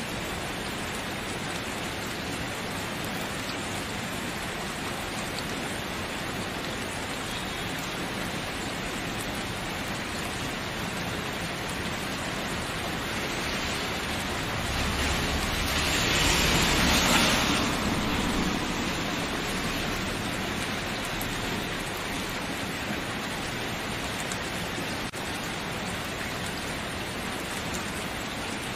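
Steady rain falling, an even hiss of drops. About halfway through it swells louder for a few seconds, then settles back.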